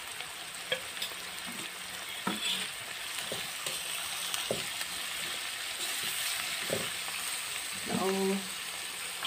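Shredded cabbage and carrot sizzling in a metal kadai while a metal spoon stirs them, with scattered clinks and scrapes of the spoon against the pan.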